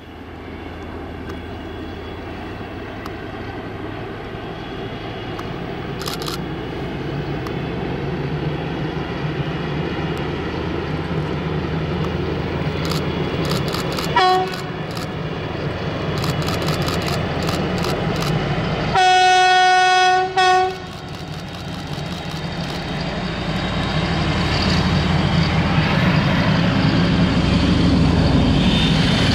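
DR class 119 diesel-hydraulic locomotive running toward the microphone, the drone of its twin diesel engines and wheels growing steadily louder. About halfway through its horn gives a short toot. Some five seconds later the horn gives a longer blast of over a second, then a brief one.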